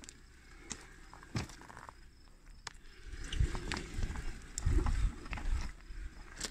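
Footsteps and light knocks on the ground, about one every 0.7 s at first, with a run of heavier low thumps in the middle; no chainsaw engine running.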